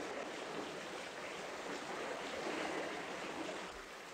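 Steady rushing noise with no clear pitch, swelling a little around the middle and easing near the end.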